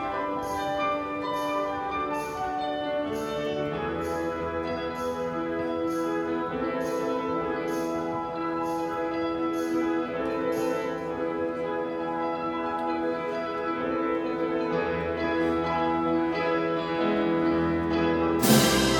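Live symphony orchestra playing sustained brass and string chords over a pulse of short high ticks about twice a second, which fade out about halfway through. Near the end the full orchestra comes in with a sudden loud hit.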